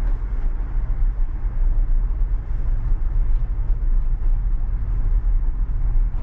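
Tyre and road noise from a Tesla electric car driving on a dirt road, heard inside the cabin: a steady low rumble.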